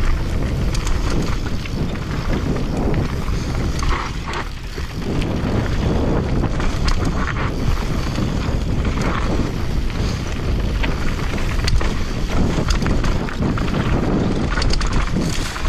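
Commencal mountain bike descending a rough trail at speed: tyres rumbling over dirt and rock, the bike rattling and clicking over bumps, with wind noise on the microphone.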